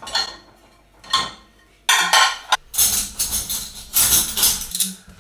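Dishes and the wire racks of a dishwasher clinking and clattering as they are handled: a couple of single clatters, then denser rattling through the second half.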